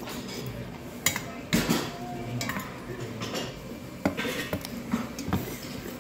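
Metal chopsticks and spoon clinking and scraping against a stainless steel bowl as cold noodles are mixed with their sauce, in a string of irregular sharp clinks.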